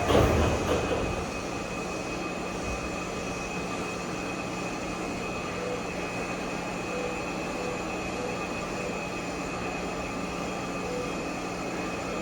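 Electric commuter train noise: a louder surge in the first second, then a steady rumble with a constant low hum.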